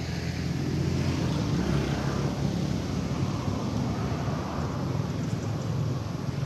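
A motor vehicle's engine running with a low, steady hum that swells about a second in and holds.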